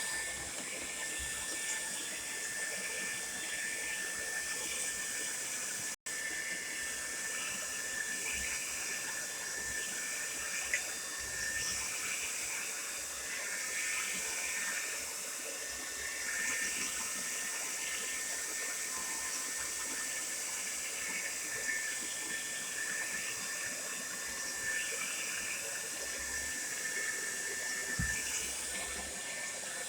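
Tresemme Salon Smooth Professional hair dryer running steadily: a constant rush of air with a thin, steady whine from the motor. The sound drops out for an instant about six seconds in.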